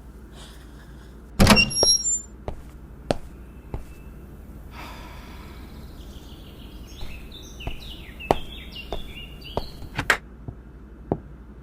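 A door shutting with a loud thunk, followed by scattered light clicks and a run of short bird chirps.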